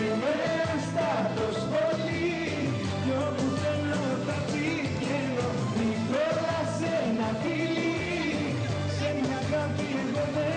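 Greek popular song playing: a wavering melody line and singing over a steady bass and beat.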